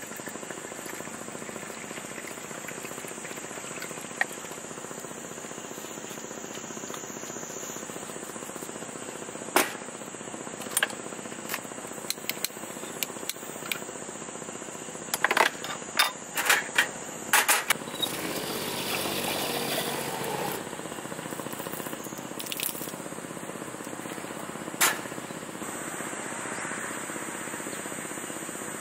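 Light metal clinks and taps as an alcohol camp stove and its metal grate are handled, coming in a cluster of quick knocks about halfway through. A brief hiss lasts about two seconds after them. Behind it all is a steady high drone of insects.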